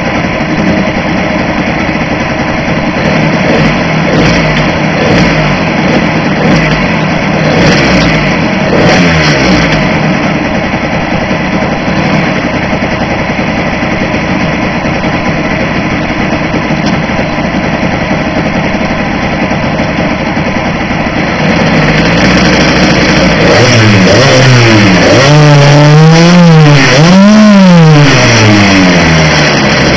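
Small two-stroke petrol Blata engine of an RC trimaran running fairly steadily, then from about two-thirds through getting louder and being revved up and down in quick repeated bursts.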